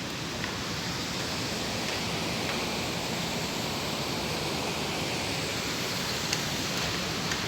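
Waterfall rushing steadily: an even wash of falling water, with a couple of faint ticks near the end.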